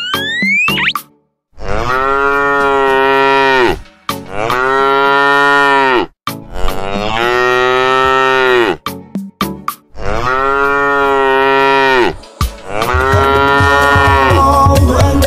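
Cow mooing: five long, drawn-out moos of about two seconds each, separated by short pauses, each dropping in pitch as it ends. A low pulsing beat comes in under the last moo.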